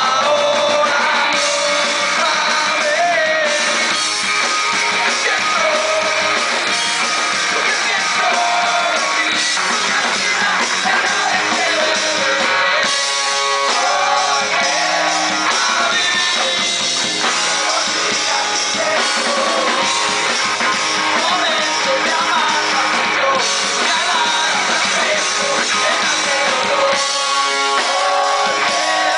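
Live punk rock band playing: a singer over electric guitars and drums.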